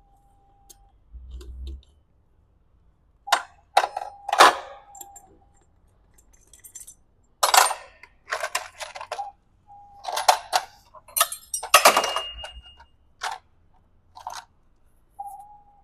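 Metal hand tools and loose engine parts clinking and clanking: a dozen or so sharp knocks and rattles at irregular intervals, with short pauses between.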